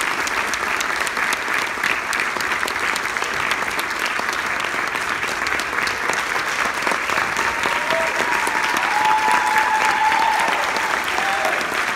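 Audience applauding steadily at the end of a school band's performance, with a few cheers rising over the clapping near the end.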